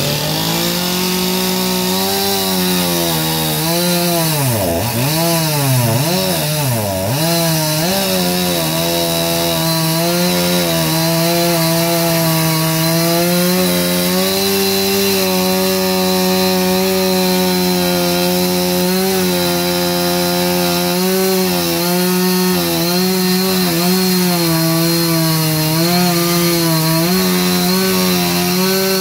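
Gasoline chainsaw cutting into a wooden log during chainsaw carving. The engine runs at high revs under load, its pitch dropping and coming back up several times in the first seven seconds or so, then holding fairly steady with small wobbles as the chain bites into the wood.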